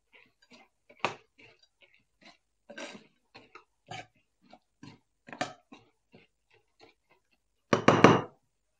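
A metal spoon stirring fried boondi through sugar syrup in a frying pan: irregular wet squelches and scrapes of the spoon against the pan, with a louder burst of scraping just before the end.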